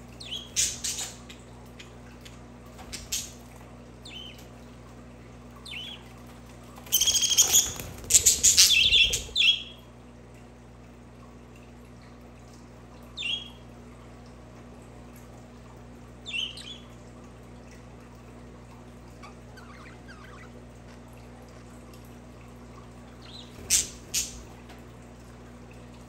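Budgerigars chirping in short scattered calls, with a denser burst of chatter about seven to nine and a half seconds in, over a steady low hum.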